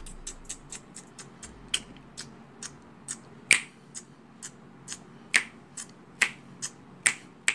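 Fingers snapping over and over, about two or three sharp snaps a second, unevenly spaced and some much louder than others.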